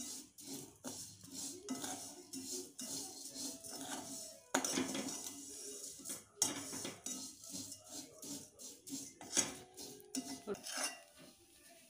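Metal spoon scraping and clinking against a metal kadhai as dry vermicelli is stirred and roasted: an irregular, continuous run of scrapes and taps.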